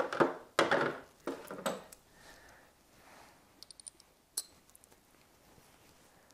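Metal sockets and a ratchet being picked up and handled on a cloth shop towel: fumbling and handling noise in the first couple of seconds, then a quick run of about four light metallic clicks and, a moment later, one sharper clink.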